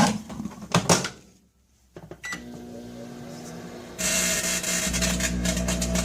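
A few clicks, then a microwave oven starts up about two seconds in and runs with a steady electrical hum, which grows louder about four seconds in.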